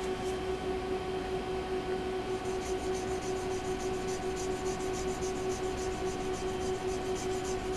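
Mora knife blade lapped back and forth on an oak board charged with abrasive compound and oil, a quick, even run of gritty rubbing strokes starting about two seconds in, over a steady low hum.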